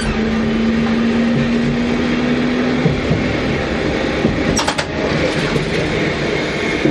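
Fukui Railway 200 series tram running along the track, heard from the cab: a steady running rumble. A steady hum stops about three seconds in, and a brief high squeak comes about halfway through.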